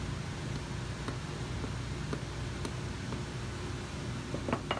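Cobbler's hammer tapping brass tacks into the waist of a leather boot sole: light taps about twice a second, with a few quicker, louder taps near the end, over a steady hiss of shop noise.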